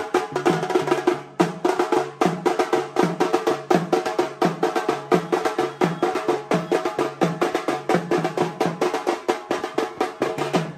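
Double-headed barrel drum beaten with a stick in a fast, steady rhythm of about four strokes a second.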